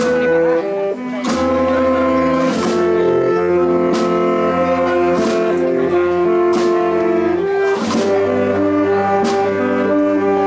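Wind band of saxophones, trumpets and tubas playing a slow processional march, holding sustained chords that change every second or so, with a percussion stroke about every 1.3 seconds.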